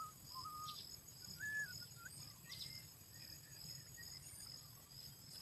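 Outdoor ambience: insects buzzing steadily at a high pitch, with a few short whistled bird notes and a couple of faint taps.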